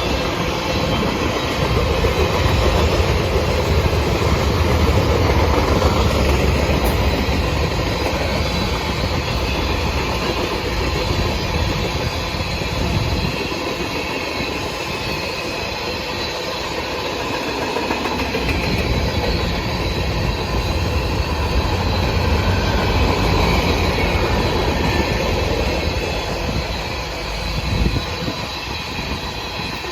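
Freight cars of a mixed manifest train rolling past, their steel wheels rumbling and clacking over the rail joints. The low rumble thins for a few seconds in the middle, then builds again.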